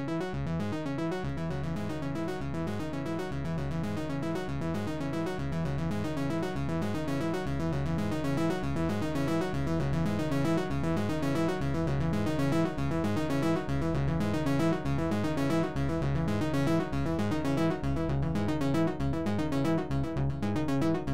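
Electronic synthesizer music: a quick, evenly repeating sequence of keyboard-like notes over a steady low pulse, slowly building in loudness.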